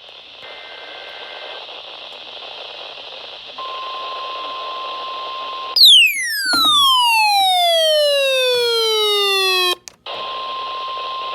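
Weather-radio reception hiss with a brief faint data warble, then a steady beeping alert tone of about 1 kHz, the NOAA Weather Radio 1050 Hz alarm tone. About six seconds in, a loud buzzy electronic tone cuts in and slides steadily down in pitch for about four seconds. It stops with a click, and the hiss and the steady alert tone come back.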